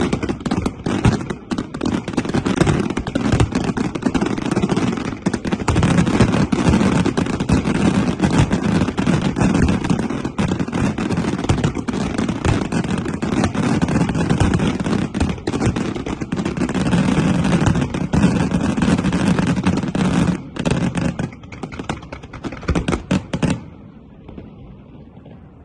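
Professional aerial fireworks display: a dense, continuous barrage of bangs and crackles that thins out about 20 seconds in and stops a couple of seconds before the end, leaving only faint background noise.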